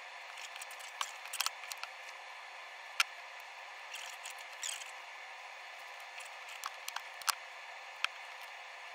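Scattered small clicks and light rattles of wires and plastic connectors being handled and fitted together, the loudest click about three seconds in, with a brief rustle midway, over a steady background hiss.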